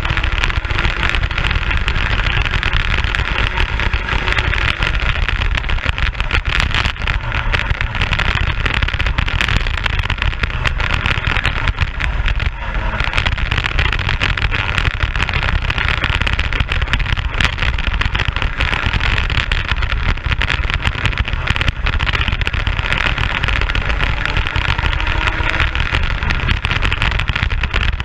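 Racing kart engine running at speed, recorded onboard, its note rising and falling through the corners and easing briefly about twelve seconds in. Heavy wind noise on the microphone covers much of it.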